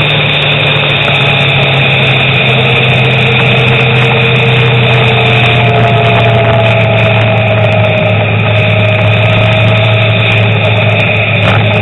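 Steady engine drone and road noise heard on board a vehicle driving along the road; the engine note settles slightly lower a few seconds in.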